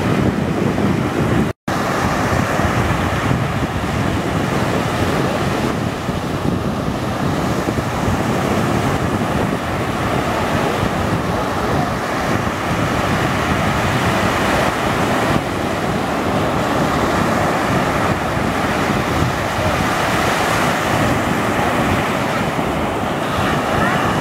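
Ocean surf breaking, with wind buffeting the microphone: a steady rushing noise. It is broken once by a split-second gap about a second and a half in.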